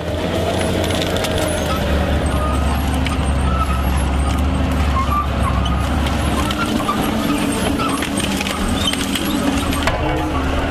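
Heavy diesel forestry machine running steadily under load, a deep engine drone with scattered clicks and short squeaks from the working machinery.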